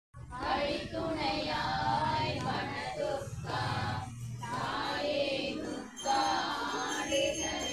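A group of women chanting devotional prayers together in a sung unison, with short pauses between phrases.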